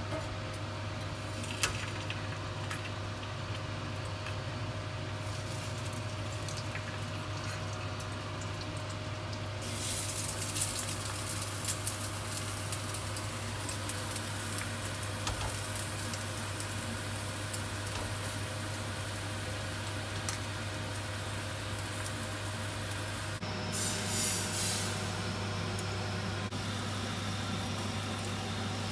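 Oil sizzling in a frying pan as small whole fish fry in it, over a steady low hum. The sizzle gets louder about ten seconds in and flares briefly again near the end, with a few light clicks of handling.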